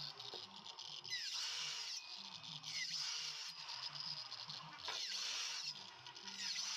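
Background music with a low, stepping bass line.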